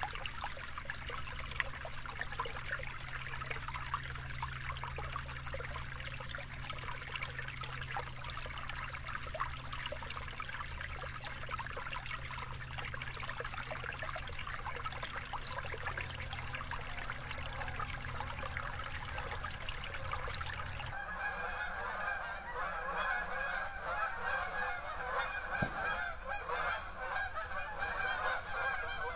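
A shallow brook babbling and trickling over rocks, then after about twenty seconds a sudden change to a flock of geese honking, many calls overlapping.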